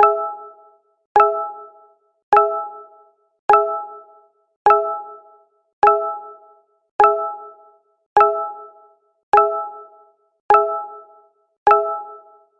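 Google Hangouts notification chime, played over and over at an even pace of about one every 1.2 seconds, eleven times. Each is a short bright chime of a few notes struck together that dies away quickly.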